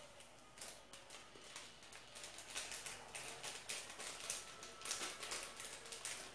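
Faint, irregular light clicks and rustling from hands working at a small packet of turmeric powder to add it to the mixture.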